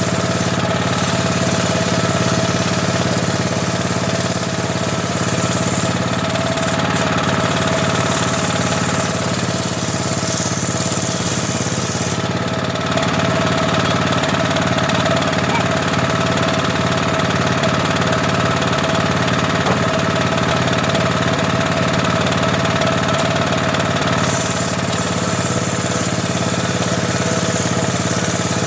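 Homemade table saw running steadily, its blade spinning and sawing teak. A high hiss from the cut fades about twelve seconds in and returns near the end.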